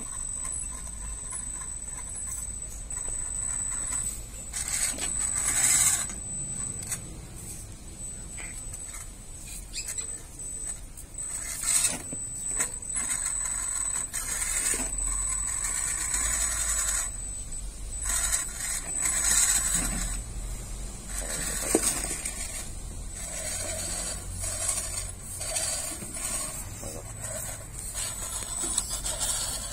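3D-printed RC rock crawler with a brushless motor and printed gearbox, driven over wire mesh and plastic flowerpots: a thin high motor whine that comes and goes with the throttle, with repeated clattering and scraping of the tyres and chassis on the mesh.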